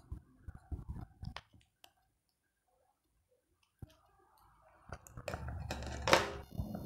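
Steel scissors snipping through a folded paper fan: a quick run of short crisp snips in the first second and a half, a single snip near four seconds, then a louder handling rustle with a sharp knock near the end.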